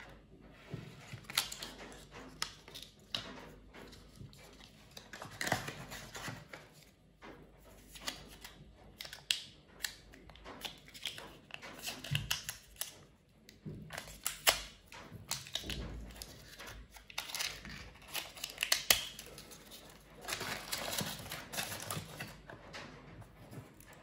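Cardboard packaging and plastic wrap rustling and crinkling as a boxed charger is unpacked and handled, with irregular small taps and clicks.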